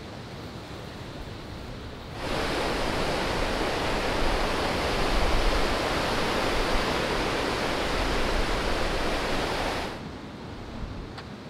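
Sea waves breaking and washing onto a pebble shore: a steady rushing wash that comes in suddenly about two seconds in and drops away suddenly about ten seconds in, with fainter surf and wind before and after.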